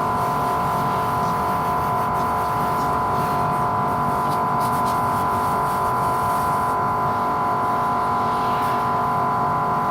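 A machine running steadily, a constant hum with a high steady whine near 1 kHz over a low rumble, unchanging throughout.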